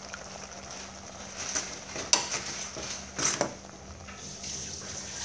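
Metal spoon stirring instant noodles in an aluminium pot over a steady simmering hiss, with a sharp clink of spoon against pot about two seconds in and a louder knock and scrape about a second later.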